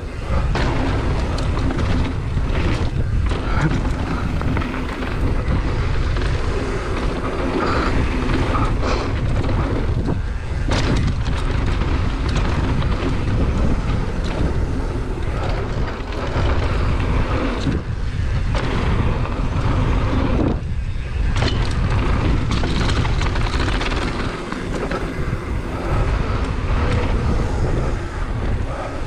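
Wind rushing over the microphone as a GT Fury downhill mountain bike runs fast down a dirt jump trail. The tyres roll on packed dirt and gravel, and the bike rattles, with sharper knocks over bumps and landings.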